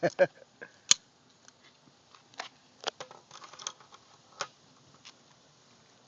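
Scattered sharp metallic clicks and light knocks from handling a .410 break-action shotgun between shots, as it is opened and reloaded. The sharpest click comes about a second in.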